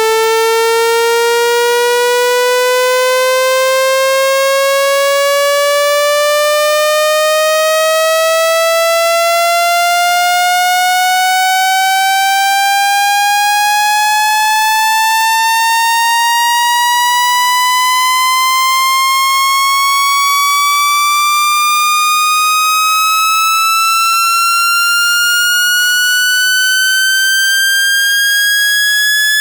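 Synthesized buzzy tone rich in overtones, loud and steady, its pitch sliding slowly and evenly upward the whole time: a sweep played through a phone's loudspeaker to vibrate trapped water out of it.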